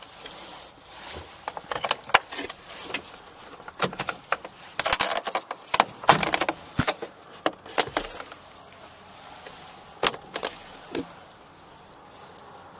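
Irregular metallic clicks, clinks and rustling as the pilot handles gear in the open cockpit of a MiniMax ultralight, with the Hirth engine stopped. The clicks are busiest in the middle and thin out near the end.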